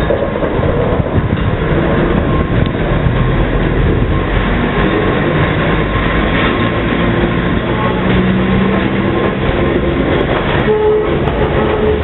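Gakunan Railway electric locomotive ED501 passing close by, hauling container flat wagons: a steady, loud rumble of steel wheels on the rails.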